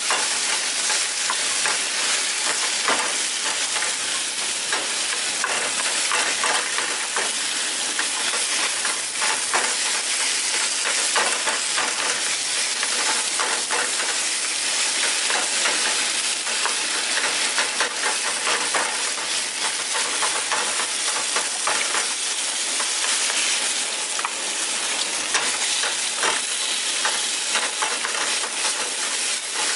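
Rice frying with a steady sizzle in a small pan while a lightweight Japanese cypress wooden spatula stirs and scrapes it, giving many quick scraping taps over the hiss.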